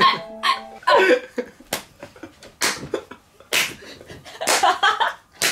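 A man and a woman laughing hard in sharp, breathy bursts about once a second, some with short voiced cries after them.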